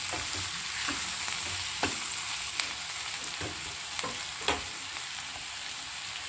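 Ivy gourd (kovakkai) pieces sautéing in oil in a kadai, a steady sizzle, while a spatula stirs them and scrapes and taps against the pan several times. The gourd is being fried dry in oil, without water, until it shrivels.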